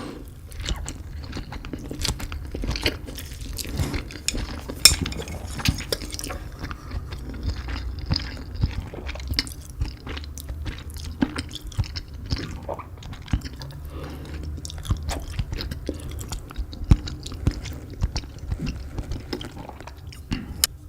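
Close-miked chewing of spicy Korean-style Indomie instant noodles: a dense, irregular run of short wet clicks and smacks. Now and then a utensil knocks against the dish.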